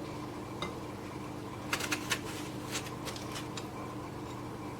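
Scattered light clicks and clinks of a kitchen knife against dishes while an apple is peeled, a quick cluster about two seconds in and a few more near the middle, over a faint steady hum.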